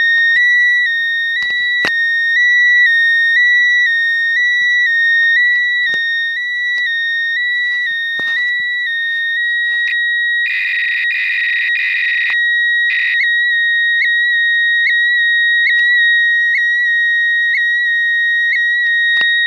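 Cardiac event monitor's speaker sending its stored ECG recording down a phone line as a loud, high warbling tone that steps back and forth between two close pitches. About halfway through it turns harsher and buzzier for a couple of seconds, then returns to the plain warble.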